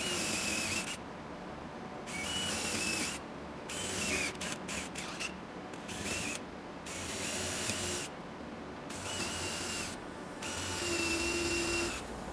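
DeWalt cordless drill with a brad-point bit boring holes in pine boards, the motor whining in repeated runs of about a second each as it starts and stops for hole after hole. A few very short trigger blips come about four to five seconds in.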